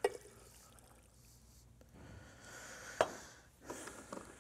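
A thick liquid is poured from a glass into a blender jar packed with greens, with a sharp knock about three seconds in and some small clatter near the end.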